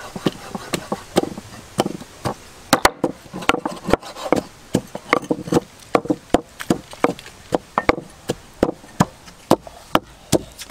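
A knife chopping against a wooden cutting board: a run of sharp, uneven strokes at about two to three a second.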